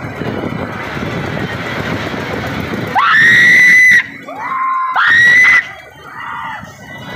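Riders on a fast-turning Ferris wheel screaming: two long, loud, high screams about three and five seconds in, with a shorter, lower cry between them, over a steady rushing noise.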